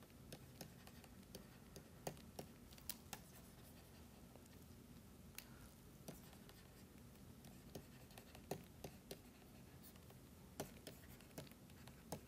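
Faint, irregular clicks and light scratches of a stylus writing on a pen tablet, over a low steady hum.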